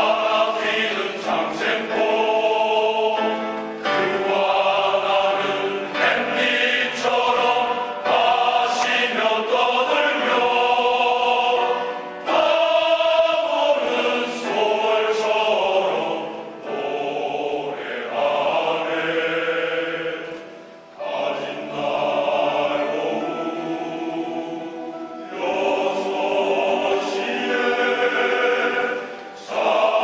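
A large men's choir of about a hundred voices singing in sustained phrases, with short breaks between phrases and a brief dip in level about two-thirds of the way through.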